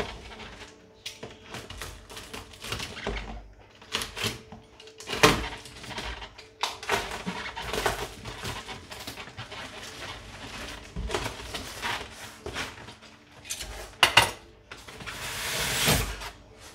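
Cardboard shipping box being cut open and unpacked: crinkling plastic wrap and tape, cardboard scraping and light knocks, with a longer rip about fifteen seconds in.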